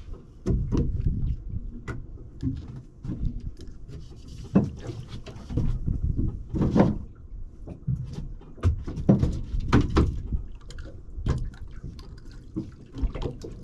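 Water sloshing and splashing with irregular knocks and clicks on a small boat, no steady rhythm.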